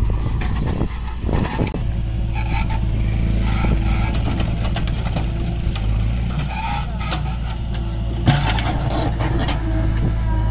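Diesel engines of a JCB backhoe loader and a tractor running steadily under load while the backhoe bucket scrapes and dumps soil, with scattered knocks and one sharp knock about eight seconds in.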